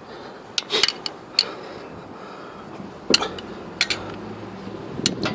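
Several light, sharp clicks and knocks at uneven intervals, three in the first second and a half and more later on, with a low background between them.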